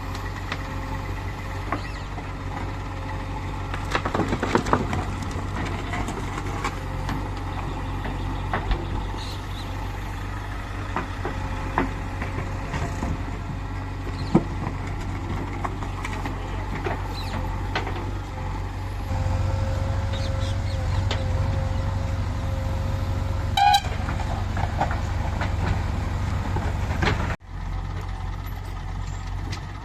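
JCB 3DX backhoe loader's diesel engine running steadily under work, with scattered knocks and clanks. The engine gets louder about two-thirds through, and a brief pulsing tone comes near the end.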